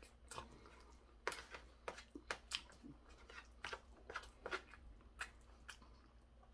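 Close-up chewing of stir-fried pork cartilage, a string of sharp irregular crunches as the cartilage is bitten, with a metal spoon scraping and clicking in a plastic food tray.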